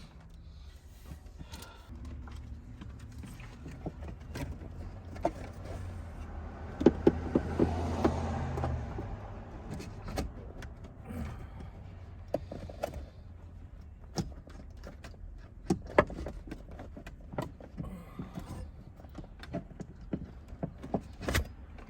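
Scattered clicks, knocks and rattles of tools and parts being handled while a seatbelt retractor is fitted, over a low steady hum. About seven seconds in there is a louder, denser stretch of clatter lasting a couple of seconds.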